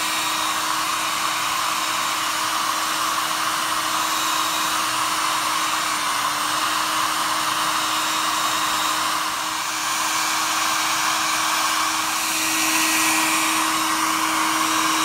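Windmere Mini Turbo 1200 hair dryer running steadily: a loud, even rush of blown air over a constant motor hum. The hum grows a little louder about twelve seconds in.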